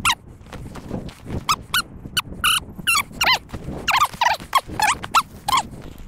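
English setter whining in a quick string of short, high, squeaky whines, each one sliding down in pitch, about two or three a second.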